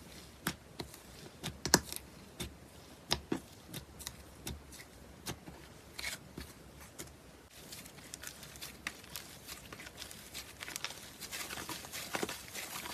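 Crunchy foam-bead slime pressed and squeezed by fingers: irregular sharp crunchy pops, then a denser, fainter crackling about halfway through as the slime is worked and stretched.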